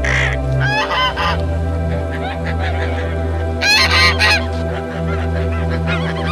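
White domestic geese honking: a quick run of calls about a second in, a louder burst of honks in the middle and softer calls between, over a steady low hum.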